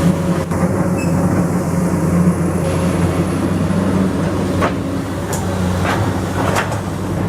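Komatsu PC200 excavator's diesel engine running steadily, with a few short knocks from the working machine in the second half.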